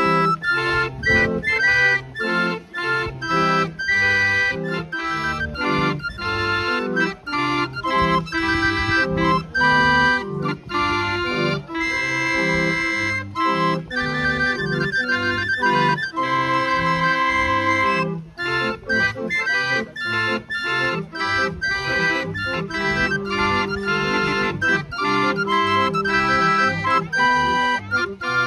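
Hand-cranked Bacigalupo pipe barrel organ playing a tune: a melody line over bass notes and chords in a steady rhythm.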